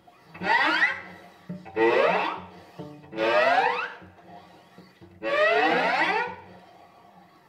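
Two violins and a cello bowing together in four short swells, each with sliding, swooping pitches, separated by brief near-silent gaps.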